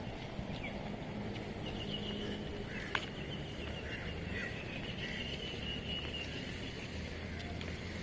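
Outdoor park ambience: a steady low rumble of distant traffic under faint high bird chirps and a trill, with a single sharp click about three seconds in.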